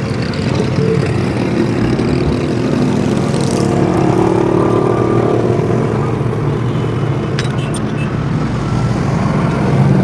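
An engine running steadily, its note swelling and rising a little in pitch around the middle, with a few sharp metallic clicks near the end.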